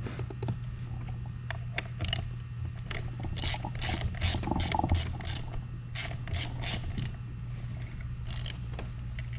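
Hand ratchet clicking as the outer hub bolts are tightened down, in short irregular runs of clicks with brief pauses between strokes.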